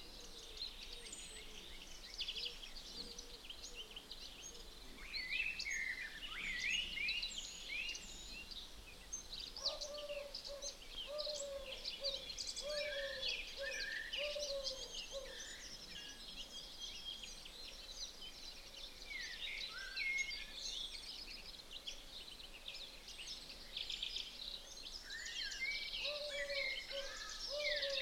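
Several birds singing and chirping at once, with many quick high notes throughout. A lower bird call repeats in a quick series about a third of the way in and again near the end.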